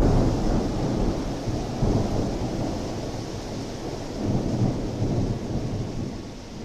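Thunder rumbling, loudest at the start, swelling again about two seconds in and around four to five seconds, then fading. Steady rain hisses underneath.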